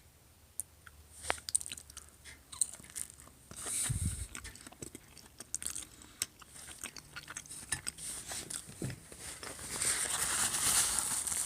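A person biting and chewing pizza dipped in marinara sauce, with irregular crunches and small mouth clicks.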